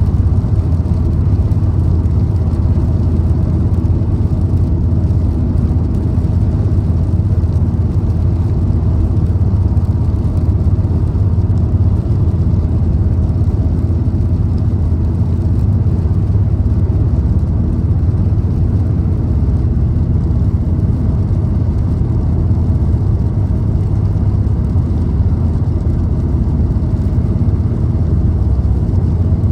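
Car cruising steadily: a constant low rumble of engine and tyre noise with no change in speed.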